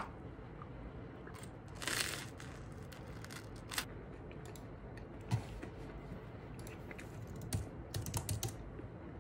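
Laptop keyboard keys tapped now and then: scattered single clicks, with a brief rustle about two seconds in and a quick run of several taps near the end.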